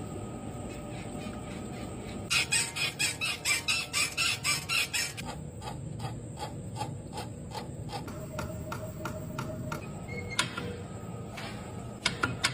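Mechanical clicking from a car: a run of loud, sharp clicks about four a second for nearly three seconds, then fainter, even ticking about three a second, and a few scattered clicks near the end.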